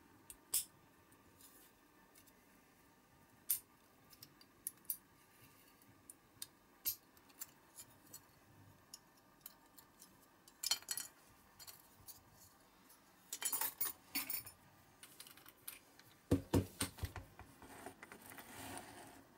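Steel pick clicking and scraping against a diecast toy truck's metal body as it is pried apart, in scattered sharp ticks and short bursts of scraping. A few duller knocks come about three-quarters of the way through.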